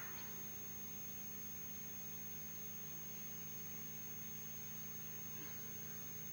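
Steady low electrical hum with a thin, steady high whine above it.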